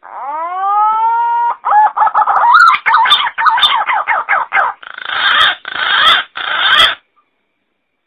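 Green pigeon (punai) song played as a bird-lure recording: a rising whistle, then a quick run of warbling notes that turn into harsh, raspy notes, stopping about seven seconds in.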